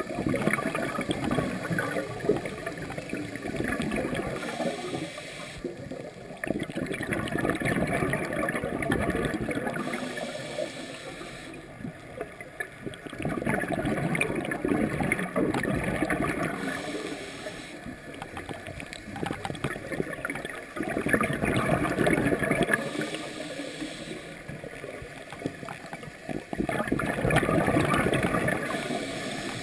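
Scuba breathing through a regulator underwater: bursts of exhaled bubbles gurgling and rushing about every six to seven seconds, with a quieter hiss in between.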